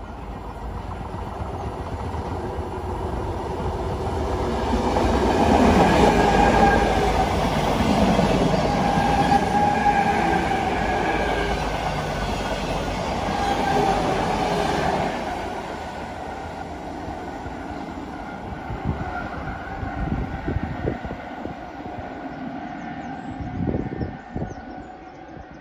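Stainless-steel suburban electric multiple unit passing along a station platform. Its noise builds over about six seconds, carries a steady whine while the train runs by for some ten seconds, then fades away, with a few knocks near the end.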